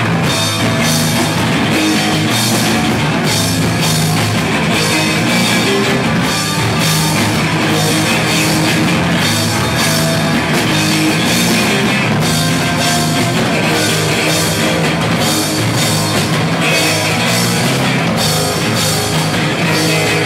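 Live punk rock band playing loud, with distorted electric guitars and a drum kit, its cymbals and drums hitting in a steady fast beat.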